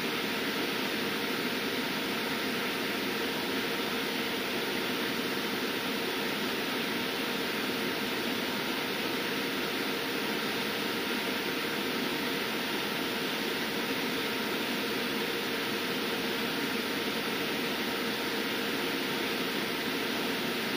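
EMotorWerks SmartCharge-12000 EV charger running under load while charging in constant-voltage mode, its current slowly tapering. It gives a steady rushing noise with a faint hum at a couple of fixed pitches.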